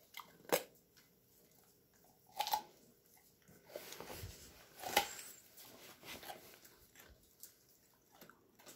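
Dog chewing pieces of raw carrot, with a few sharp crunches about half a second, two and a half and five seconds in and quieter chewing between.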